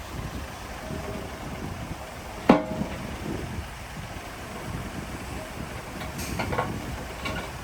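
Heavy earthmoving machinery running with a steady low rumble, with one sharp, loud metallic bang that rings briefly about two and a half seconds in and a few lighter metal clanks near the end.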